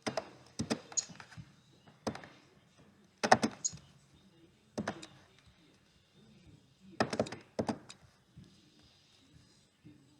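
Plastic LEGO Technic parts clicking and clacking as they are handled and pressed together. The clicks come in short clusters, with quiet gaps of a second or more between them.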